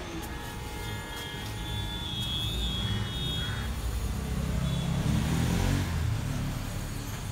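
Motor vehicle engine rumbling, growing louder about five seconds in and then easing off, with a few faint high-pitched tones in the first three seconds.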